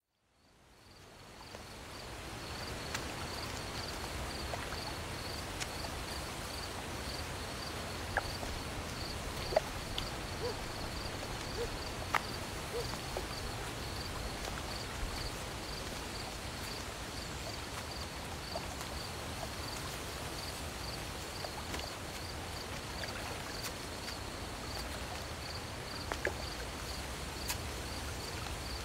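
Night ambience of crickets chirping in a steady, evenly pulsing rhythm over a low background hiss, fading in over the first two seconds, with a few faint clicks.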